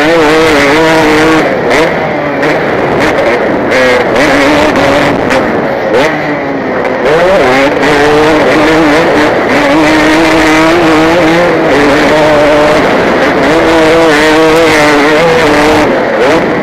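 KTM 250 motocross bike's engine at race pace, heard from the rider's helmet camera. Its pitch rises and falls as the throttle is worked through the gears, with short dips every few seconds where the rider backs off or shifts.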